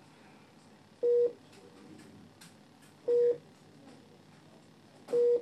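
Philips IntelliVue MP30 patient monitor beeping: a short single mid-pitched tone repeating every two seconds, three times, about a second in, about three seconds in and near the end.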